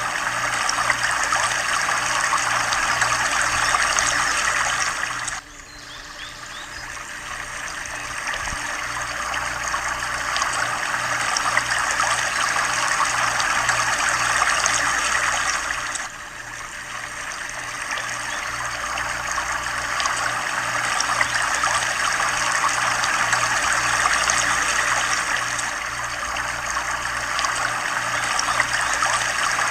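Running water of a small stream, trickling and splashing steadily. The sound drops abruptly twice, about five and sixteen seconds in, and builds back up over several seconds.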